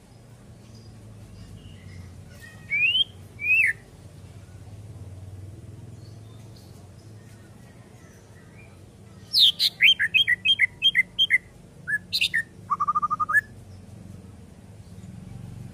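White-rumped shama calling: two clear gliding notes about three seconds in, then a quick run of chirping notes and a short fast trill later on.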